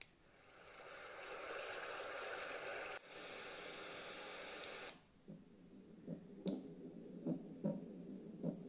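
Tommee Tippee Ollie the Owl sleep aid's small speaker playing its steady hiss-like soothing noise track. After a couple of clicks about five seconds in, it switches to a low, rhythmic heartbeat sound with paired beats.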